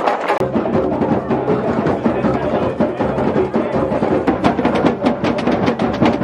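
Many djembes and other drums played together in a drum circle, a dense, fast, steady beat of overlapping strokes. There is a brief dropout about half a second in, after which deeper drums are heard.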